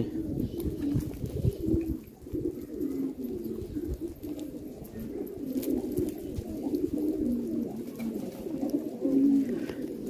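A flock of fancy domestic pigeons cooing: many low coos overlapping without a break, with scattered light clicks among them.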